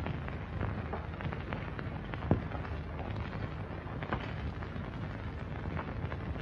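Steady hiss and crackle of an old 1950s film print's soundtrack, with scattered small clicks and pops and one louder pop a little over two seconds in.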